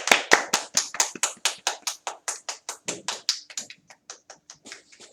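Hand clapping, quick and even at about six claps a second, growing fainter and sparser toward the end.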